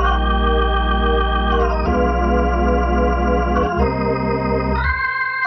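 Background music of held organ-like chords, several notes sounding together, changing to a new chord every second or two.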